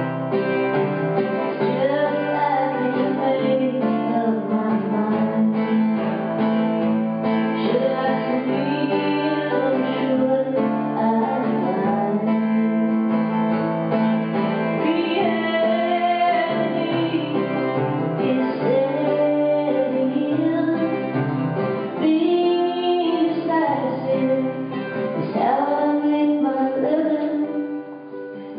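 A woman singing a song live to her own acoustic guitar accompaniment.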